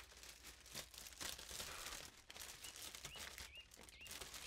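A plastic carrier bag crinkling and rustling as it is handled and cloth is pulled out of it. A bird chirps repeatedly in the background in the second half.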